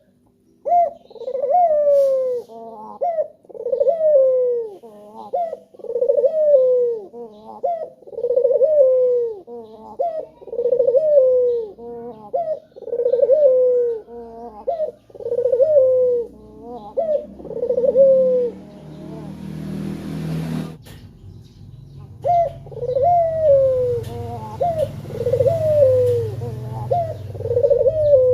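Male puter (Barbary dove) cooing over and over, one arched, falling coo about every second and a quarter. The coos break off for a few seconds past the middle, with a low rumble and a single sharp click, and then start again.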